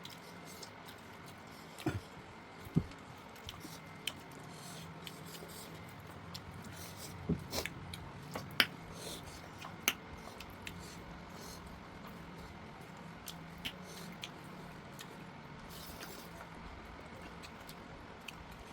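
People eating pork curry: mouth and chewing sounds, with scattered short sharp clicks and knocks over a low steady hum.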